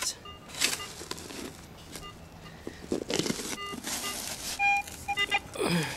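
Metal detector giving short beeps at several different pitches as it sounds off on a target still in the bottom of a dug hole, mixed with a few scrapes and knocks of a hand digging tool in the soil.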